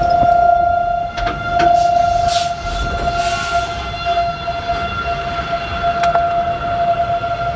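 Outdoor tornado warning siren sounding one steady, unwavering tone that swells and fades slightly, over a low rumble.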